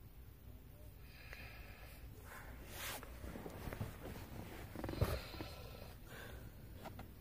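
A woman snoring in her sleep: a few noisy breaths, the loudest a rattling snore about five seconds in.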